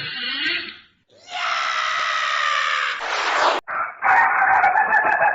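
Cartoon comic-snore sound effects that keep changing character: a short rising-falling snort, then a long, loud, crowing-like call that sags in pitch and ends in a falling sweep, then a wavering, warbling call.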